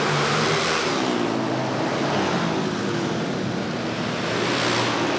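Several flat-track racing motorcycles running hard through a turn, their engine notes rising and falling.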